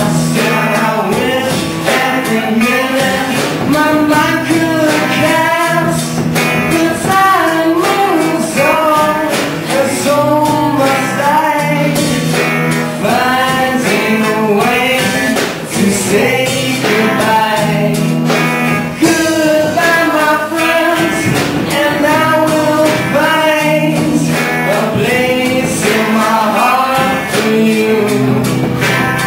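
A song sung with guitar accompaniment and a steady bass line running underneath.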